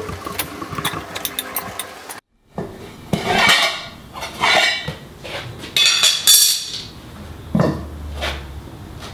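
Metal tyre levers clinking and scraping against a wheel rim as a car tyre is levered onto it by hand, in several short rattling bursts, with a single knock near the end.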